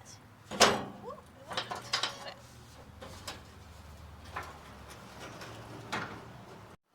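Metal clicks and clunks from working the tailgate latch of a 1990 Mazda B2200 pickup: a sharp clank about half a second in, then a handful of lighter knocks spread through the following seconds.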